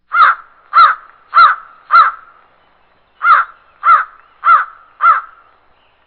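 A crow cawing loudly: two runs of four harsh caws, about two a second, with a pause of about a second between the runs.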